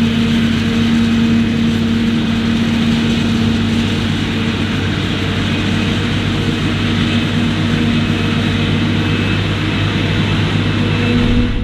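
Heavy diesel farm machinery at work in a maize silage harvest, running steadily: a deep engine hum under a loud rushing, chopping noise.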